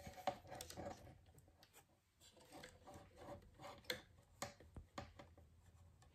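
Near silence broken by faint, scattered small clicks and rubs as hands handle the wiring inside a wooden amplifier enclosure.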